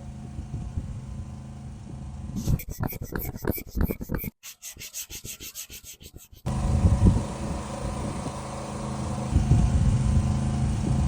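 Sanding and rubbing on car bodywork during a scuff repair, in several short cut-together clips: a steady machine hum, then a run of rapid, regular rubbing strokes, then louder steady sanding.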